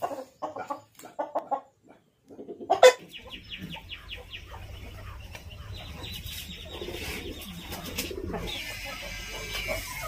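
Aseel rooster clucking in short calls in quick runs. A sharp knock comes near three seconds, after which fainter clucking continues over a rapid high chirping and a low hum.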